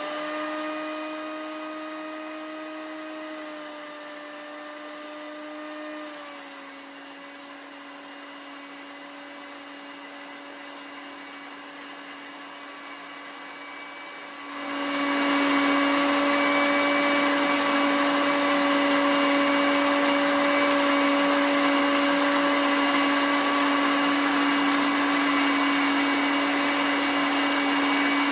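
Electric grain mill running with a steady high motor whine. About halfway through it turns much louder and grittier as corn feeds from the hopper into it and is ground to a fine powder.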